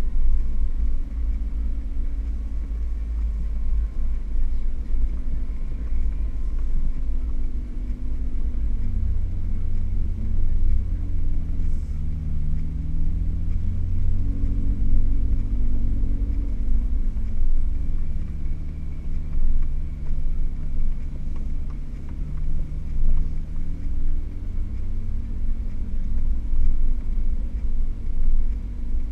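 Jeep Wrangler's engine running over a heavy, constant low rumble, heard from inside the cab on a rough dirt trail. The engine note rises and falls several times as the throttle changes over the bumps and climbs.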